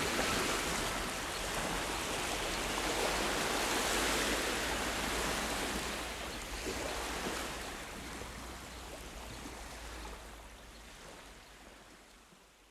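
A rushing noise with slow swells, fading out gradually to near silence after the music stops.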